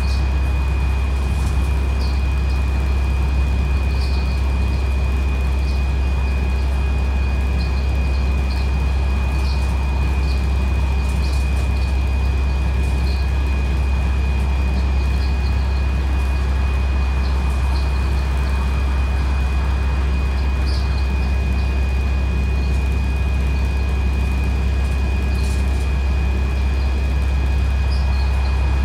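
Interior drone of a bus's Cummins ISBe 6.7 straight-six diesel cruising at a steady speed, with road noise and a steady high whine over the low engine note. Light ticks and rattles now and then, and no change in engine pitch.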